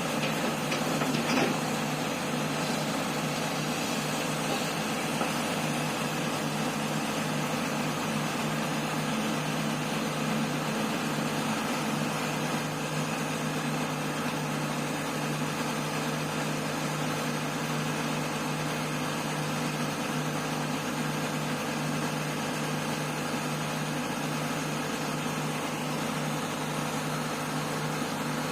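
Excavator diesel engines running steadily, a continuous low hum with a brief knock about a second in.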